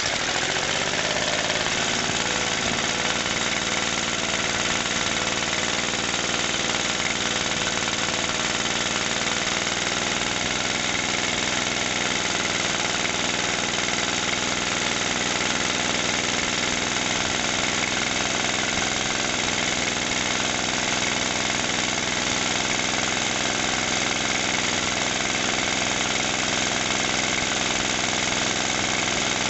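1963 Briggs & Stratton 2.25 hp single-cylinder four-stroke engine coming up to speed in the first second and then running steadily, with the choke off.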